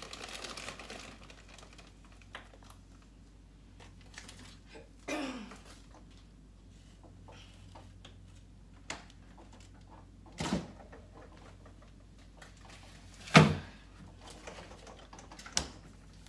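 Household clatter from another room: scattered clicks and knocks, with a few heavier thumps like doors or cupboards closing, the loudest about thirteen seconds in. There is also a short sound falling in pitch about five seconds in.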